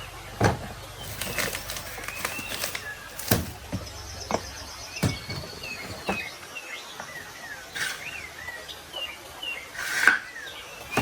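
Small birds chirping and twittering, with a fast trill about four seconds in, among sharp knocks every second or two. A low hum fades out about halfway through.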